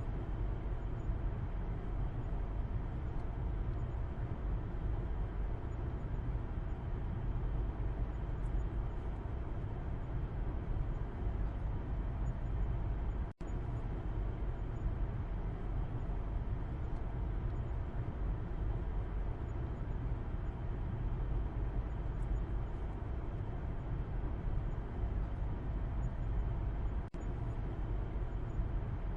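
Car cabin road noise heard from the back seat while driving: a steady low rumble. It drops out for an instant about halfway through and again near the end.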